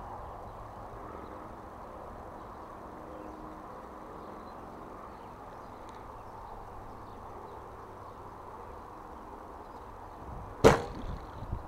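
Faint steady outdoor hush, then one sharp, loud snap near the end: a bowfishing bow being shot into shallow water.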